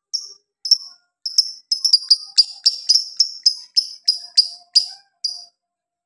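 A caged lovebird calling in a string of short, shrill chirps, a few at first, then a steady run of about three a second that stops shortly before the end.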